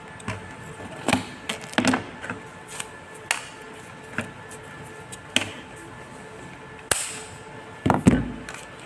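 Scattered plastic clicks and knocks from a phone being unclipped from a tripod selfie-stick clamp and a small clip-on phone umbrella being taken off. The knocks come about once a second, and the loudest ones come in a quick pair about eight seconds in.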